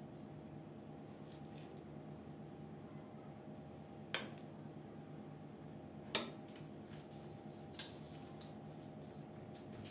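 Metal spoon clinking against a glass bowl of minced-meat filling: three sharp clinks about two seconds apart, the middle one loudest, over a faint steady hum.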